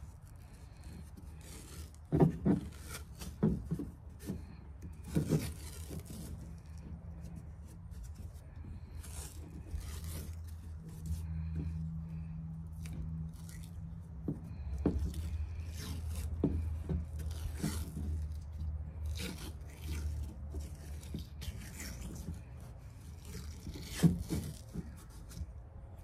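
Adhesive tape being pulled off its roll and wound around a chainsaw's handlebar grip: sticky peeling and rubbing with scattered sharp crackles. A low hum swells in the background from about ten seconds in and fades after about twenty.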